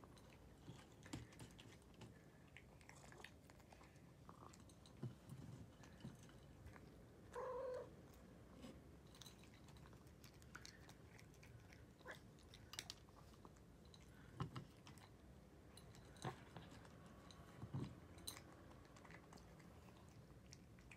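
Cat eating from a ceramic bowl: faint chewing and mouth sounds with scattered small clicks. About seven and a half seconds in comes one short pitched cry, the loudest sound.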